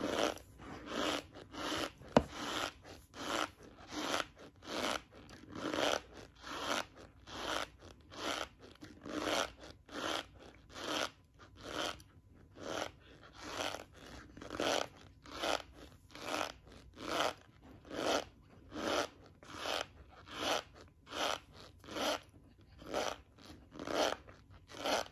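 Chewing a mouthful of cornstarch: a steady crunch about one and a half times a second, with one sharp click about two seconds in.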